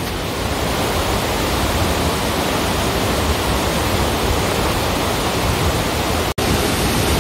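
Steady rushing roar of a waterfall running high with spring snowmelt. The sound drops out for an instant about six seconds in.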